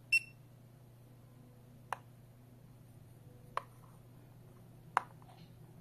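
One short, high electronic beep from a wireless alarm touch keypad as a key is touched, then three sharp clicks spread over the next few seconds as a plastic RFID tag is knocked against the keypad's touch panel. No beep answers the clicks: the keypad does not recognize the tag.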